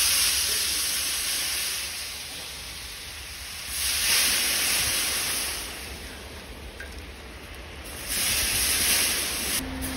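Hot oil in a large kadai sizzling loudly as handfuls of masala-coated raw potato strips are dropped in for deep frying. The sizzle surges with each handful, about four and eight seconds in, and dies down between.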